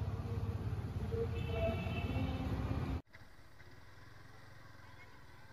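Motorcycle and road traffic noise, a steady low rumble with a few thin high tones over it. About three seconds in it cuts off suddenly to a much quieter steady low engine hum from on the Yamaha R15 V4 motorcycle.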